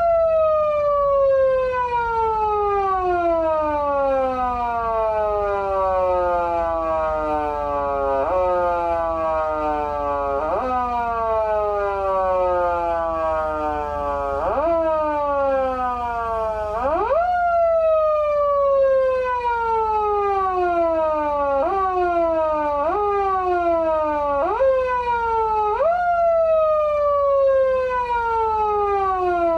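Pedal-operated foot siren from a Patlite SAP-500BK-PV siren amplifier, its wail jumping up quickly with each press and then winding slowly down, repeated at uneven intervals. About 17 seconds in it climbs longer and higher before falling away again.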